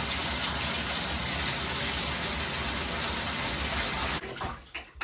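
Bathtub faucet running, water pouring steadily into the tub, then shut off about four seconds in.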